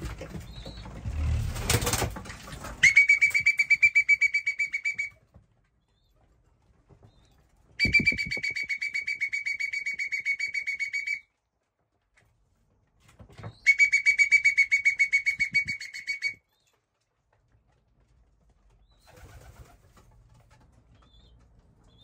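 A trilled whistle blown in three long blasts, each a steady high note with a fast rattle in it, used to call young racing pigeons in off the roof to be fed. Rustling and knocking come before the first blast.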